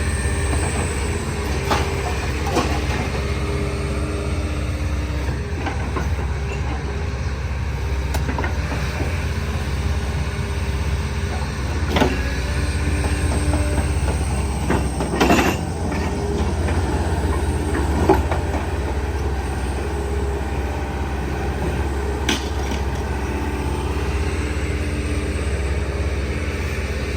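Heavy machinery engine running with a steady low rumble, with occasional sharp metal clanks from scrap being handled, a loud cluster of them about fifteen seconds in.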